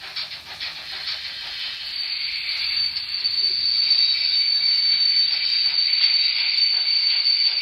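The DCC sound decoder of an N-gauge model steam locomotive plays its braking sounds through its small speaker: a steady high brake squeal over a hiss of steam. The hiss dips right at the start and builds back up over the next couple of seconds.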